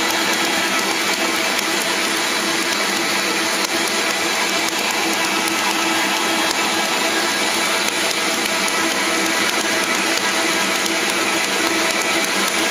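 Stand mixer running steadily, its motor and dough hook kneading a very wet, 100%-hydration pizza dough in a stainless steel bowl: a continuous, even whir with a few steady tones in it.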